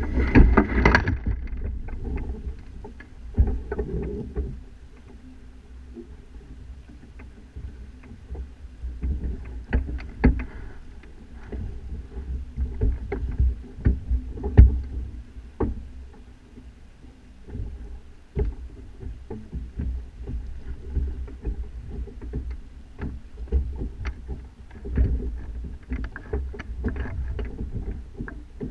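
Sailing kayak's mast and rig heard from a camera at the masthead: a steady low rumble with irregular knocks, clicks and rattles from the mast, fittings and sail as the boat rocks. A louder burst comes about a second in.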